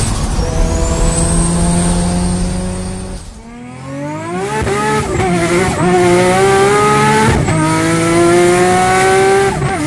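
Turbocharged car engine under hard acceleration, its pitch climbing and dropping sharply at gear changes, with a high turbo whistle rising near the start.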